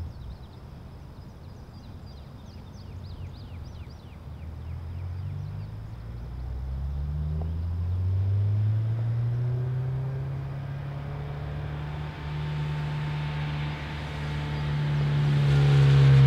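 A car engine running under way, its pitch climbing slowly from about six seconds in, levelling off, then rising again and getting louder near the end.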